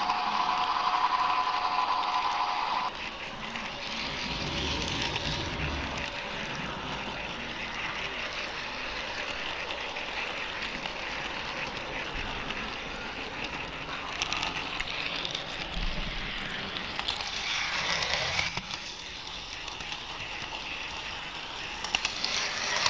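A train horn sounding one steady chord of several tones for about three seconds, then cutting off sharply. It is followed by the steady running noise of a model train with occasional low rumbles.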